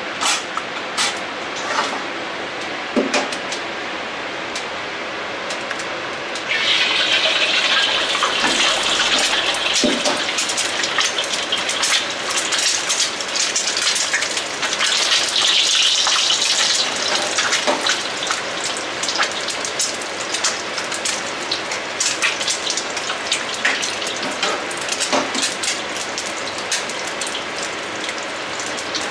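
Eggs frying in hot oil in a wok: a dense crackling sizzle full of spitting pops. It grows louder about six seconds in, as more eggs are cracked into the oil.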